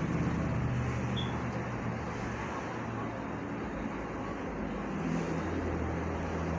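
A steady low mechanical hum with a noisy hiss over it, without a break.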